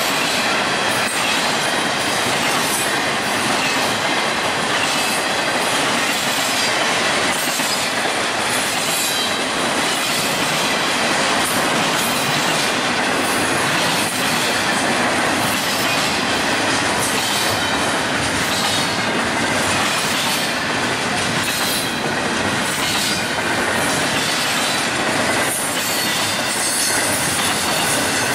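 Intermodal freight train cars, carrying trailers and double-stacked containers, rolling past close by: a steady loud rumble of steel wheels on rail, broken by repeated clacks.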